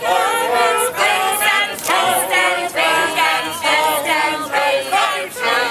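A small group of men and women singing together a cappella, in short, evenly paced sung syllables about two a second, led by a conductor.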